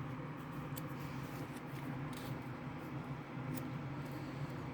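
Faint paper rustles and light clicks from a picture book's pages being handled, the pages stuck together, over a steady low hum in a small room.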